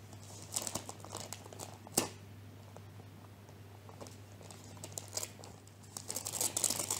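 Wrapping paper crinkling and tearing in short, scattered bursts as a present is unwrapped, with one sharp snap about two seconds in and denser crackling near the end.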